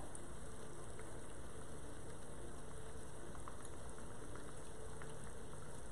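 Meat sizzling steadily as it browns in a pot, with faint scattered crackles.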